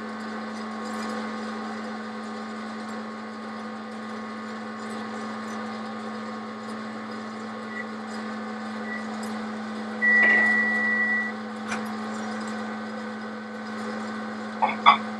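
Steady electric hum of a West Bend Popcorn Pumper hot-air popcorn popper running. About ten seconds in, a microwave oven gives one long high beep as its timer runs out, and there are a few faint clicks near the end.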